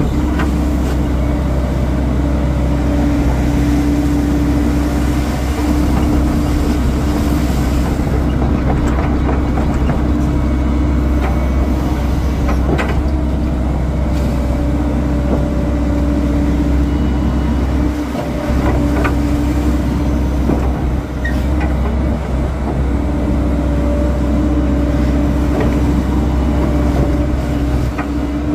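Hyundai hydraulic excavator heard from its cab: the engine runs steadily under a whining tone that comes and goes for several seconds at a time as the boom and bucket work, with occasional short knocks.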